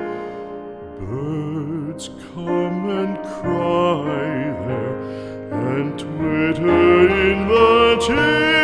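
Slow, tender music: the closing bars of a song, with held notes that waver in pitch and new notes entering about once a second.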